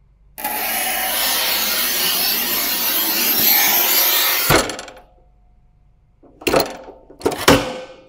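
Sawing sound effect: a harsh, steady cutting noise for about four seconds that ends in a sharp crack, followed after a pause by two short sharp hits about a second apart.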